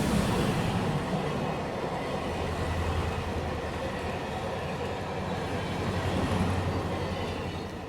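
Train running past, a steady low rumble under a rushing noise, fading out near the end.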